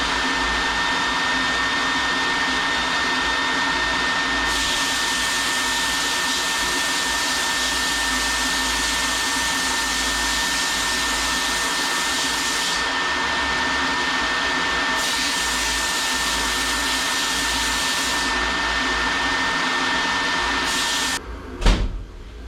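A motor-driven machine running steadily with a constant high whine and a rushing noise. A sharper hiss comes and goes over it several times. It shuts off about a second before the end, followed by a single thump.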